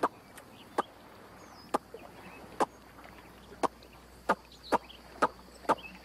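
A man calling an alligator with a series of short, sharp clicking mouth sounds, about one or two a second and coming faster in the second half. Faint bird chirps sound in the background.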